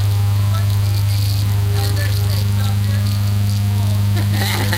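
Loud steady electrical hum, low-pitched with a weaker overtone, buzzing over the whole recording: a fault in the audio capture that drowns out the faint voices behind it.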